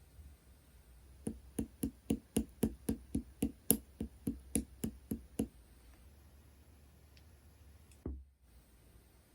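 A quick, even run of about sixteen taps on slime containers, about four a second, stopping after some four seconds. A single duller thump follows near the end.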